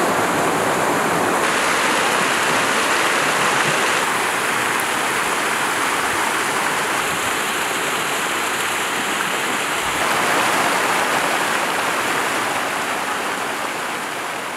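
Small waterfalls and creek cascades rushing steadily into rock pools at a hot spring. The tone shifts a few times, and the sound fades away near the end.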